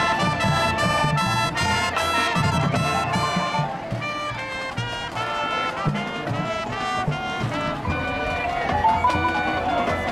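Marching band playing: brass and saxophones in short repeated chords for the first few seconds, then longer held notes, over bass drum hits.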